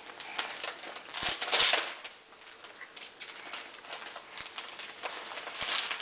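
Crinkling and rustling of gift wrapping as a toddler's hands open a present. It is an irregular crackle with a louder rush of rustling about a second and a half in and another near the end.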